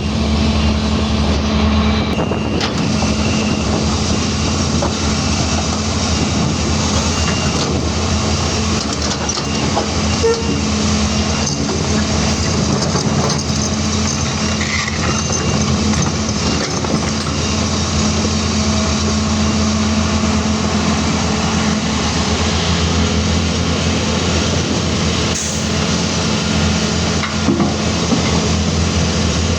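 Caterpillar 336D excavator's diesel engine running steadily at working speed, a constant low drone, with a few short knocks here and there.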